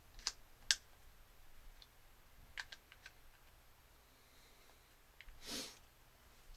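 Sharp plastic-and-metal clicks of a Streamlight TRL-3 weapon light being clipped onto a Glock 17's accessory rail. A couple of clicks come near the start, with a few lighter ticks a little before the middle. A brief soft rush of noise comes near the end.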